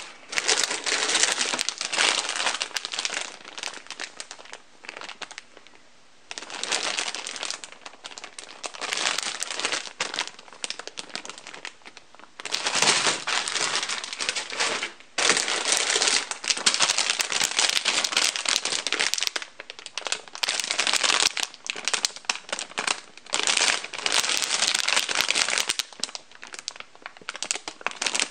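Clear plastic bags holding plastic model-kit runners crinkling as they are handled and lifted from a cardboard box. The crinkling comes in spells of a few seconds with short pauses between them.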